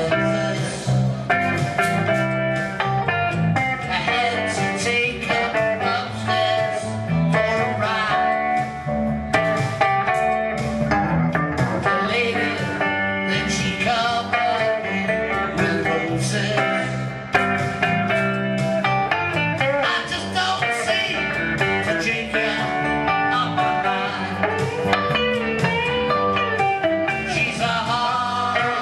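Live band: a man singing into a microphone over electric guitars, a bluesy rock song played without a pause.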